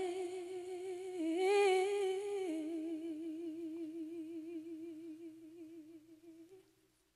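Unaccompanied female voice holding the last word of a sung line, "way", as one long note with vibrato. The note steps up briefly, drops back, and fades out near the end, leaving silence.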